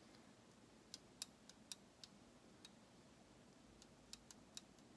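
Faint, light clicks from a brass clock movement's wheel arbor being moved sideways in its pivot holes to check end play, a few clicks a second with a pause in the middle.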